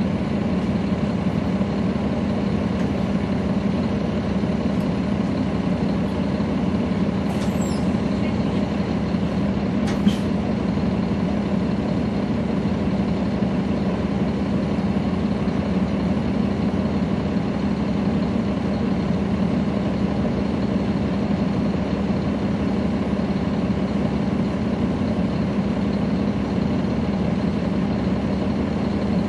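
The Caterpillar C13 ACERT diesel engine of a NABI 40-foot transit bus, heard from the rear seats inside the bus, running at a steady pitch. Two brief sharp sounds come around eight and ten seconds in.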